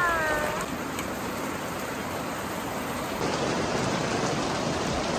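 Heavy rain falling steadily in a downpour, an even rushing hiss.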